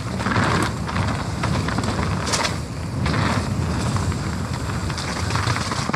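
Nukeproof Mega full-suspension mountain bike descending a wet, rough trail at speed: steady rushing wind on the microphone over the clatter of tyres, chain and suspension on the rough ground, with a few sharper knocks.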